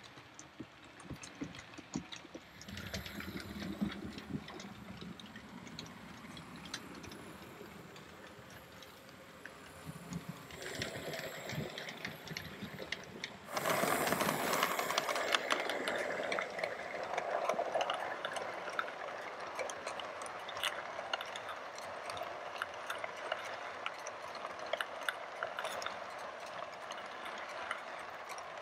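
Model railway train, a steam locomotive and coaches, running along the layout's track: a steady run with a dense clicking of wheels over rail joints and points. It jumps much louder about halfway through as the train passes right by.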